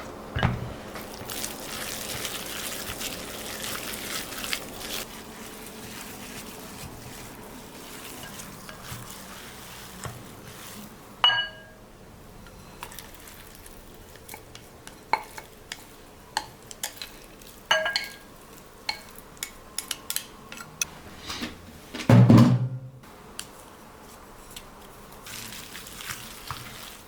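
Kitchen sounds: utensils and dishes clinking, with a steady hiss over the first several seconds. A few sharper clinks ring briefly, and a louder low knock comes near the end.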